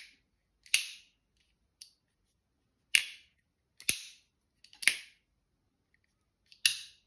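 Benchmade Griptilian 551 folding knife being flicked open and closed on its AXIS lock: a series of about six sharp snaps, roughly a second apart, with a few fainter clicks between.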